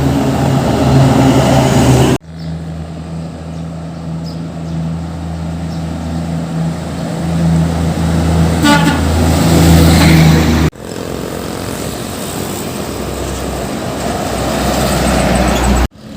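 Heavy diesel truck engines running, with a steady low hum; the sound changes abruptly twice. A brief horn toot about nine seconds in.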